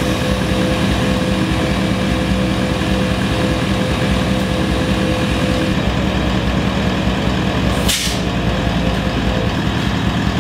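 ARB twin-motor 12 V air compressor running steadily, pumping air through a hose into a deflated tyre whose valve core has been removed. A brief sharp noise cuts through about eight seconds in.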